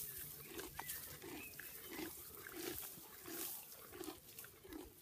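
Donkey chewing a mouthful of grass close to the microphone: steady, rhythmic munching with small crunching clicks, about three chews every two seconds.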